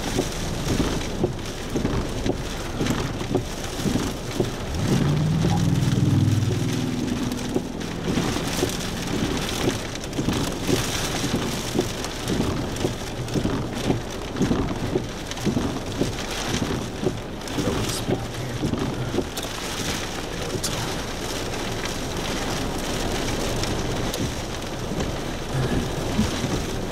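Heavy rain beating on the roof and windshield of the vehicle, heard from inside, as a dense patter of drops with a low rumble from about five to seven seconds in.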